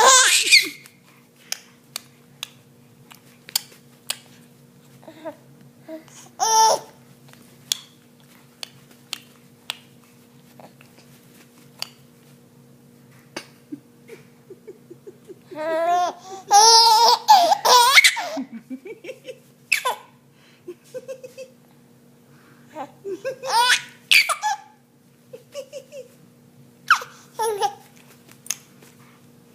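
A baby laughing in bursts, high-pitched, the longest stretch of giggling a little past the middle, with faint ticks and a steady low hum between the laughs.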